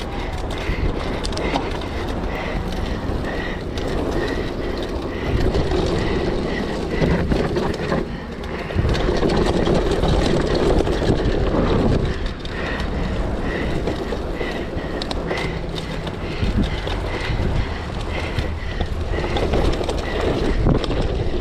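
Mountain bike riding down a muddy trail: a steady rumble of wind and tyres with frequent knocks and rattles from the bike over rough ground, and a faint squeak repeating about twice a second.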